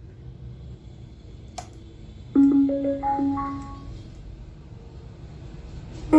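KTS-1057 Bluetooth speaker sounding a short rising chime of about four notes: the prompt tone as an SD card goes into its slot. A small sharp click, the card being pushed in, comes just before the chime.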